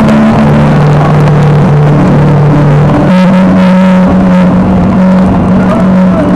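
A 1215 cc motorcycle's engine running at steady road speed, under heavy wind and road noise on the bike-mounted camera.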